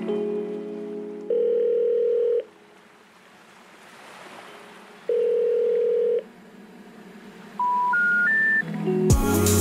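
Telephone call-progress tones: a steady ringback tone sounds twice, about a second each with a pause between, then three short rising notes of a special information tone (the 'number not in service' signal). Background music fades out about a second in, and music with a beat comes in near the end.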